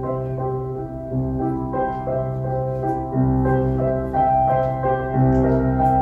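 Instrumental music of sustained chords over a steady bass line, played through an EL34 push-pull tube amplifier with all of its output tubes in place, in normal working order.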